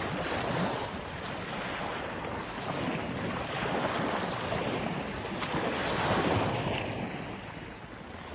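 Sea waves washing in, a rushing noise that swells and eases, loudest about six seconds in and dying down near the end.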